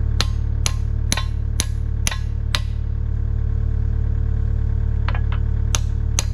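Hand hammer striking steel: six ringing blows about half a second apart, a pause, then more blows from about five seconds in, over a steady low engine hum.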